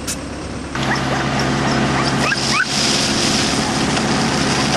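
An engine running steadily, setting in abruptly about a second in after a brief click, with a few short, high rising chirps over it.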